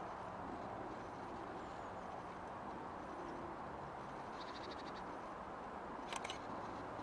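Steady, faint outdoor background noise with a low hum. About four and a half seconds in, a small bird gives a short, rapid high trill, and a few sharp clicks follow a second and a half later.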